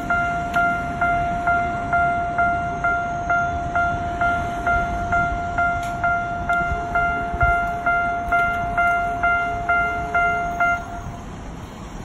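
Japanese railway level-crossing alarm ringing its repeated bell, about two strikes a second. It stops about eleven seconds in, as the crossing clears.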